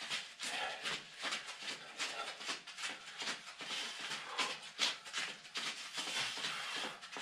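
Rhythmic scuffing and rustling from a person doing warm-up arm swings on a concrete floor, several short strokes a second.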